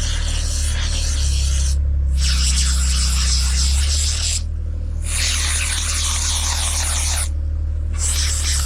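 A steady low machine hum under a loud spraying hiss that cuts off sharply three times, each time for under a second, before resuming.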